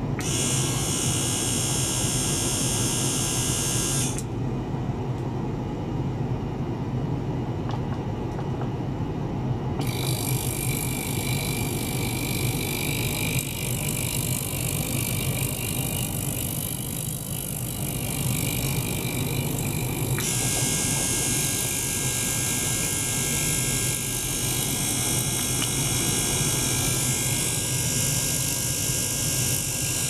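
Small motor-driven circulation pump running steadily with a low hum, together with the buzz and high-pitched whine of a small ultrasonic cleaning bath. The high whine switches off about 4 s in, returns with a different sound about 10 s in, and changes again around 20 s in, as the ultrasonic output is switched and varied.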